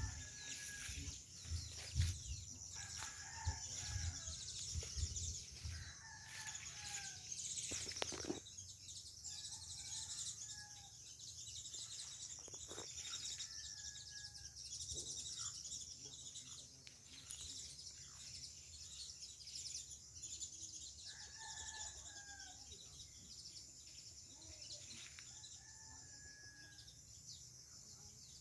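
Birds calling over and over, short falling notes every two to three seconds, over a steady high chirring of insects. Low thumps and rumble run through the first few seconds.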